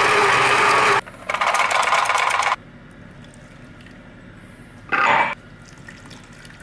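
Blender motor running in loud bursts while making a banana smoothie: it cuts out about a second in, runs again until about two and a half seconds, then gives one short pulse near the five-second mark.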